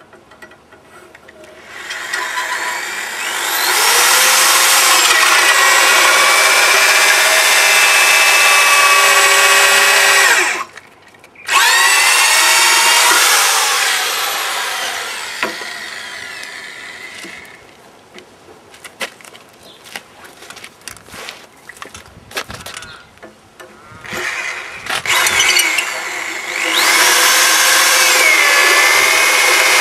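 Power tool cutting into a jarrah log: the motor winds up and runs under load, cuts off suddenly about ten seconds in, starts again and winds down, then after a stretch of light knocks and clicks starts up and runs steadily near the end.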